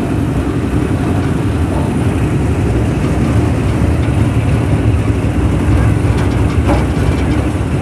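Park toy train running along its track, a steady low engine and wheel rumble heard from inside its open passenger carriage.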